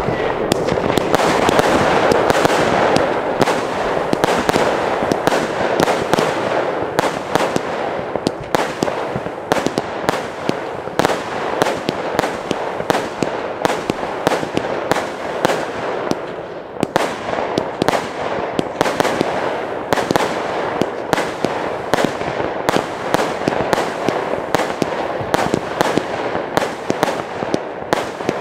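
Firework battery (PGE Italian Power 1) firing shot after shot: many irregular sharp bangs, several a second, over a continuous din of other New Year's Eve fireworks going off around it.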